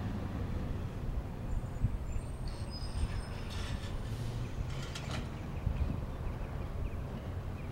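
Low, steady vehicle rumble with a few faint, high mechanical squeaks and clicks in the middle.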